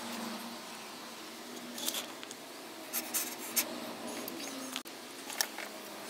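Light clicks, taps and rustling from wires and a small hand tool being handled, with a few sharp ticks scattered through.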